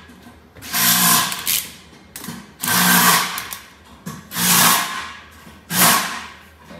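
Handheld power tool run in four short bursts, about a second and a half apart, working on a race car's sheet-metal body panel.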